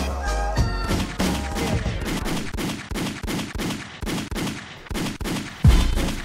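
Gunfire sound effect in a hip hop track: a long volley of sharp cracks, several a second, with a deep bass hit near the end as the beat returns.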